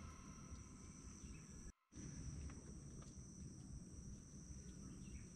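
Faint outdoor background with a steady, high-pitched insect chirring and a low hush, cut by a brief total dropout about two seconds in.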